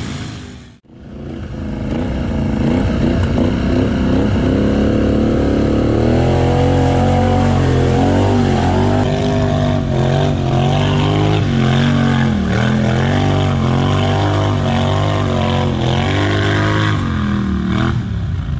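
ATV engine revving hard, rising and falling in pitch as the quad spins its wheels through deep mud. The sound drops out briefly about a second in.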